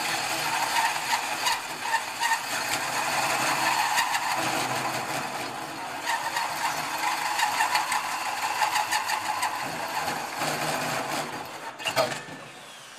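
A hole saw on a power drill cutting through metal plate about an eighth of an inch thick, a steady grinding whir that rises and falls as the teeth bite. Near the end it ends with a sharp clack as the saw is pulled from the cut.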